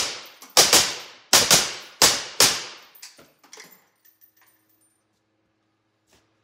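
Suppressed 7.5-inch .308 rifle with a CGS Hyperion QD 7.62 suppressor and closed end cap firing about six shots in quick succession in the first two and a half seconds, each a sharp crack with room echo. A few faint clicks follow.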